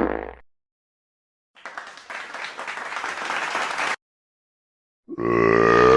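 Recorded applause, a crowd clapping for about two and a half seconds and then cut off abruptly. A short pitched sound follows near the end.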